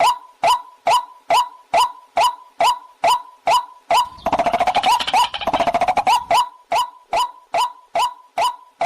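Waterhen call: a short hooting note repeated steadily about twice a second, broken for about two seconds in the middle by a fast rattling chatter before the steady notes resume.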